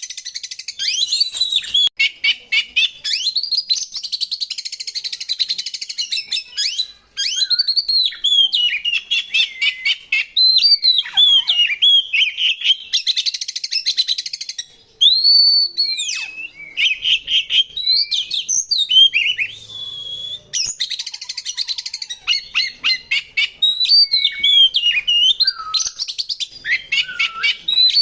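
Oriental magpie-robin (kacer) singing loudly and without let-up: a fast, varied song of high whistled notes, swooping phrases and harsh, rapid rattling trills, with only short breaks between phrases.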